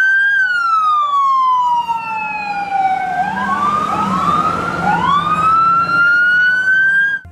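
Police car sirens wailing. One siren sweeps slowly down in pitch and then slowly back up, and several more siren wails start up and overlap with it a few seconds in.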